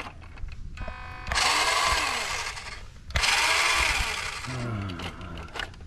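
WPL D12 RC truck's small electric drive motor and gearbox whirring in two bursts of about a second and a half each, straining as the truck tries to climb a rock.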